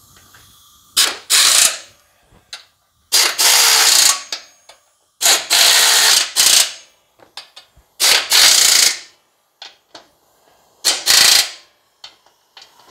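Snap-on pneumatic impact wrench hammering in six short bursts, the longest about a second and a half, as it runs down and tightens the four mounting bolts of a new mower deck spindle.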